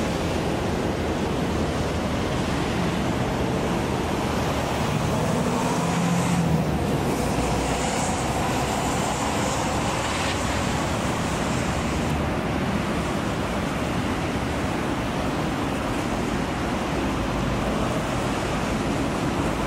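Steady harbourside background noise, an even rumble and hiss with a brief swell about six seconds in.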